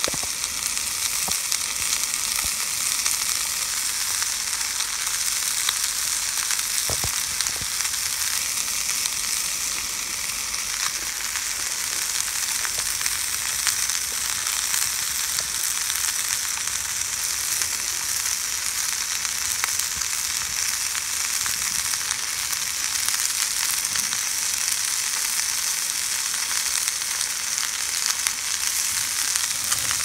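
Bone-in ribs frying in hot fat in a pan on a small camp stove: a steady sizzling hiss with scattered small pops of spatter.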